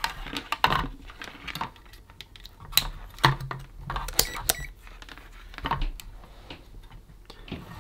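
Irregular clicks, taps and rustles of the opened speaker's circuit board and foam padding being handled and shifted, with multimeter test probes knocking against the board.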